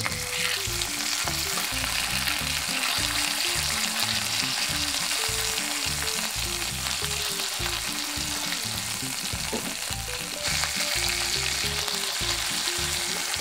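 Bone-in chicken thigh frying in olive oil in a frying pan over low heat: a steady sizzle, a little louder near the end. Soft background music with a simple melody of low notes plays underneath.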